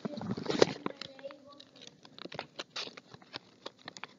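A square sheet of origami paper being folded and creased by hand: quick crackles and rustles, with a denser rustle in the first second.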